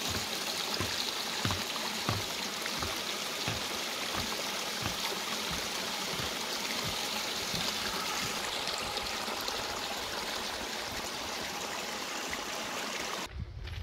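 Small forest stream trickling and splashing over mossy rocks in a little cascade: a steady rush of water that cuts off suddenly just before the end.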